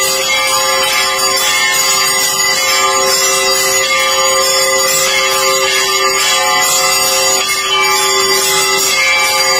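Temple bells rung rapidly and without pause for the deeparadhana lamp offering, their ringing tones held steady throughout.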